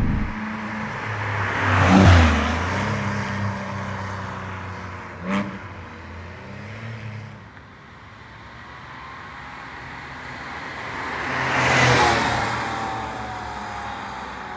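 A Porsche 986 Boxster's flat-six drives past twice: first with its valved muffler bypass open, a loud pass peaking about two seconds in, then with the valves closed, a noticeably quieter pass peaking near the end. A single sharp crack sounds about five seconds in.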